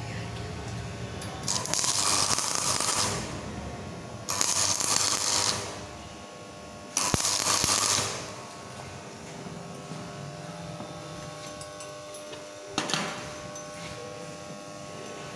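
Stick-welding (arc welding) electrode arc crackling and sputtering in three bursts of about a second each, laying a tack weld on a pipe butt joint. A single short sharp click near the end.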